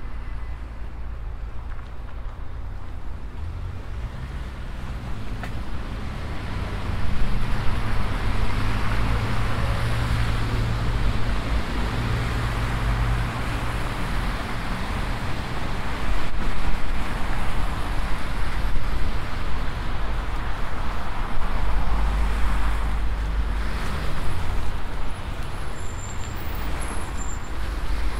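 City street traffic: cars and other motor vehicles driving past with steady engine rumble and tyre noise, swelling louder about a quarter of the way in and again near the end.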